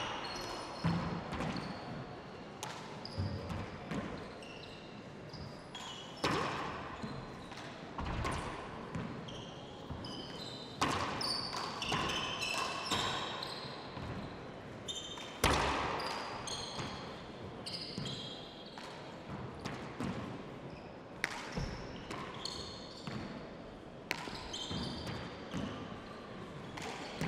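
Handball play on an indoor court: the hard rubber ball smacking off hands, walls and the wooden floor every second or few, with short squeaks of players' shoes on the floor and a crowd murmuring.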